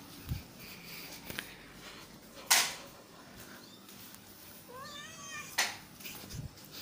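A cat meowing: a short, wavering meow about five seconds in. Two sharp noisy bursts, the louder one about two and a half seconds in, and a few faint thumps.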